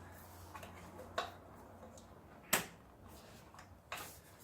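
A few sharp plastic clicks of quick-connect hose fittings being handled and snapped onto a catch can, the loudest about two and a half seconds in.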